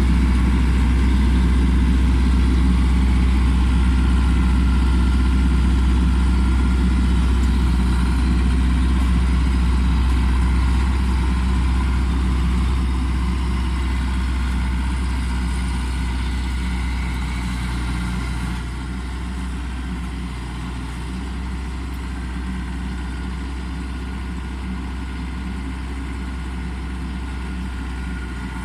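Heavy engine running steadily with a deep hum. It grows gradually quieter from about a third of the way in and steps down again about two-thirds through.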